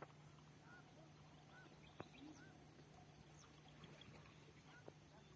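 Faint, scattered bird calls: short chirps and whistles at irregular intervals, over a steady low hum, with a couple of sharp clicks.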